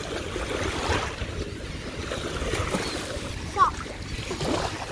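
Shallow ocean surf washing and splashing around wading children, with wind noise on the phone's microphone. A short high-pitched cry about three and a half seconds in is the loudest moment.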